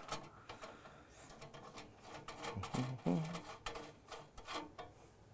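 Hand screwdriver turning a screw into the stainless-steel cup-riser panel of an espresso machine's housing: faint, irregular clicks and scrapes of metal on metal.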